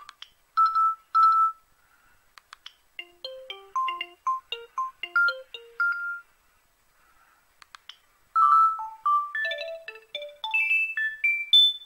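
Gigaset C620A cordless handset speaker playing ringtone previews as the melody list is scrolled: two short equal beeps, a few clicks, a quick electronic tune of hopping notes, then after a two-second pause another tune of notes stepping up and down.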